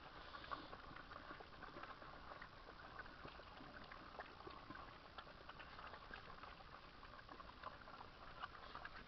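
Faint wet lapping and smacking of several puppies eating mushy porridge from bowls: a steady patter of many small irregular clicks.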